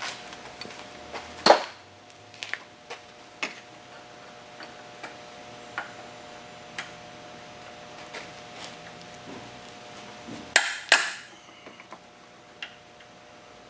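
Metal hand tools clicking and clanking in irregular, scattered strikes during disassembly under a car's hood, with two louder clanks about a second and a half in and near the end. A faint steady hum runs underneath.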